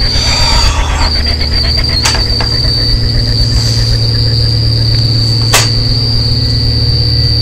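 Eerie horror sound design: a steady high-pitched whine over a loud low hum. Sharp cracks cut through it about two seconds in and again past five seconds.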